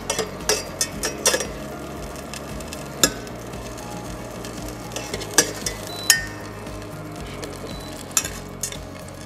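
Metal utensil stirring and scraping in a small stainless-steel saucepan, with sharp, irregular clinks of metal on the pan every second or two.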